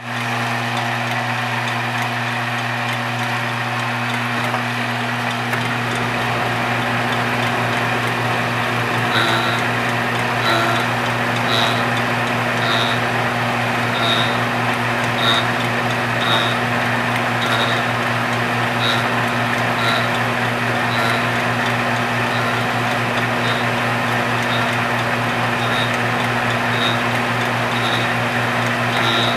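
Belt-driven fly cutter spinning at speed on a rose engine ornamental lathe, cutting into ash: its motor gives a steady hum under a whirring hiss. From about nine seconds in, a light tick repeats roughly once a second.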